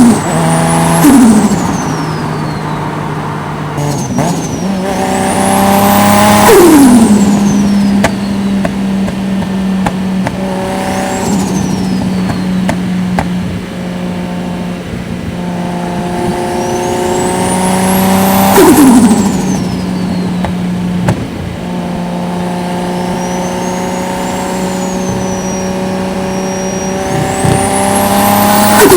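Toyota 1JZ-GTE VVTi turbocharged inline-six, cruising steadily on the highway between three short pulls. On each pull the engine note rises, then the throttle lifts and the turbo flutters with a falling whistle: about six seconds in, about nineteen seconds in, and at the very end.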